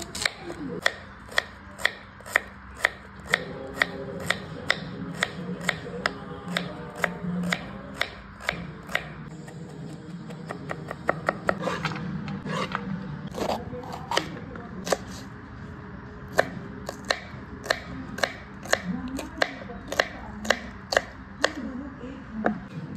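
Kitchen knife chopping vegetables (carrot, then green capsicum) on a chopping board: sharp, even knocks about two a second. Near the middle there is a brief scrape of the knife as the diced carrot is pushed off the board.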